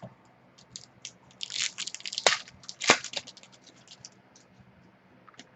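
Trading cards and their packaging being handled: a run of crinkling, scraping and flicking sounds, with two sharp snaps near the middle.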